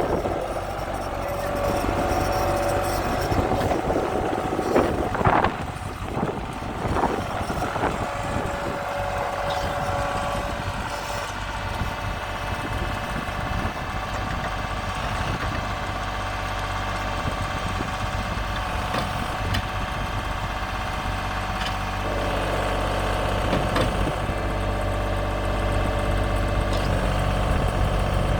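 Diesel engine of a LeeBoy 800D tracked asphalt paver running steadily, with a few clanks about five to seven seconds in.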